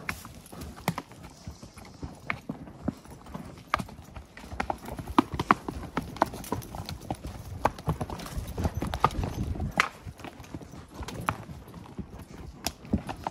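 Hooves of saddle horses walking single file on a dirt forest trail strewn with sticks: an irregular clatter of hoofbeats, busiest in the middle.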